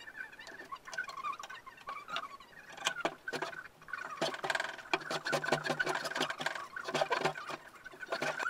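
Metal hand plane shaving a pine pallet block held in a vise: a quick run of rasping strokes from about four seconds in. Before that is a quieter stretch with a wavering high tone.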